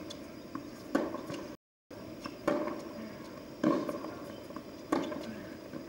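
Tennis ball struck back and forth in a rally: four sharp racket hits, roughly every second and a quarter. The sound cuts out completely for a moment between the first and second hits.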